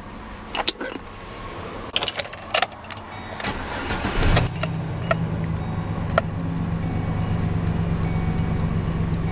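Ignition key jangling and clicking, then the 2011 Chevrolet Silverado 1500's engine cranks briefly and starts a little over four seconds in, settling into a steady idle.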